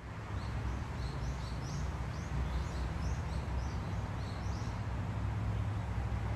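Outdoor ambience: a steady low rumble and hiss, with small birds chirping repeatedly and more quietly above it.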